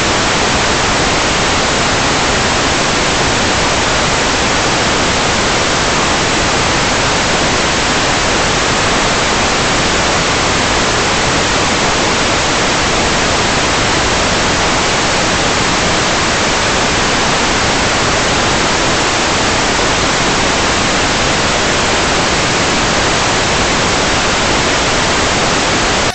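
Loud, steady static hiss with no other sound in it: the empty audio channel of an analog 5.8 GHz FPV video feed.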